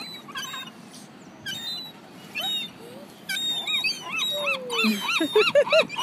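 Gulls calling: scattered high, squeaky cries, then from about four and a half seconds in a fast run of squeaking calls, about four a second, growing louder.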